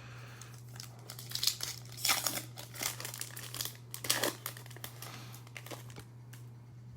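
Plastic trading-card pack wrapper being torn open and crinkled in irregular bursts, loudest in the middle, over a steady low hum.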